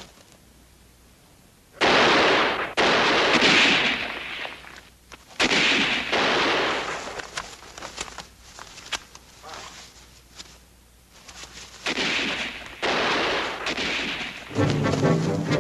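Bursts of battle gunfire in three pairs, each burst starting suddenly and dying away over about a second, with a quieter lull in the middle.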